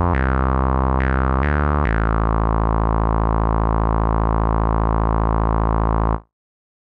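Software synthesizer playing a few short low notes, then one long held bass note that cuts off abruptly about six seconds in.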